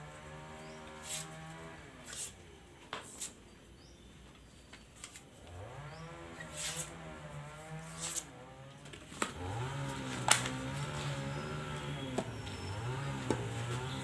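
A cow mooing in three long, low calls of a few seconds each, rising at the start and then held. Scattered sharp knocks and clicks fall between and over the calls.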